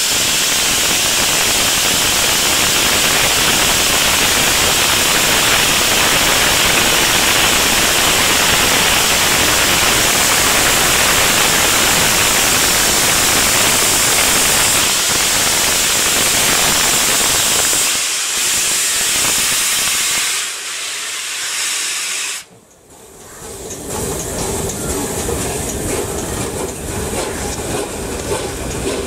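Steam locomotive 60163 Tornado, a Peppercorn A1 Pacific, with a loud steady hiss of escaping steam. The hiss weakens about 18 to 20 seconds in and cuts off about 22 seconds in. Quieter running noise of the moving train follows.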